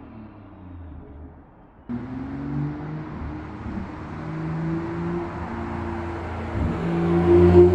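BMW 440i's turbocharged straight-six with M Performance exhaust, 200-cell downpipe and stage 2 tune, accelerating toward the listener. The engine pitch climbs, drops once at a gear change, then climbs again, getting steadily louder. The sound jumps up suddenly about two seconds in.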